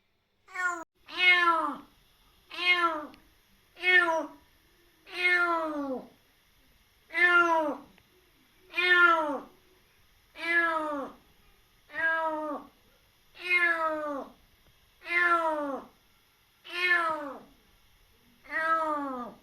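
A kitten meowing again and again, about a dozen loud meows spaced roughly a second and a half apart, each one falling in pitch toward its end.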